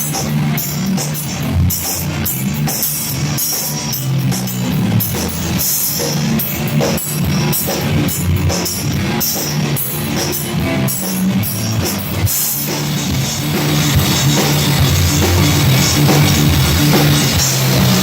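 A rock band playing live: drum kit and guitar over steady low bass notes. About two-thirds through, the cymbals change from separate hits to a continuous ringing wash.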